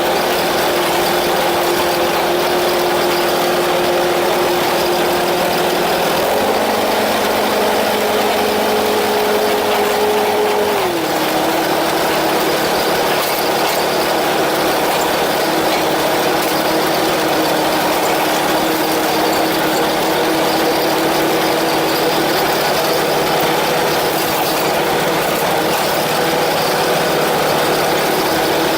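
Ride-on lawnmower engine running steadily, its pitch stepping up slightly about six seconds in and dropping lower about eleven seconds in.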